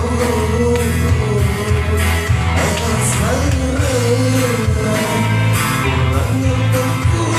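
Music: a pop song with a lead vocal sung over bass, guitar and drums.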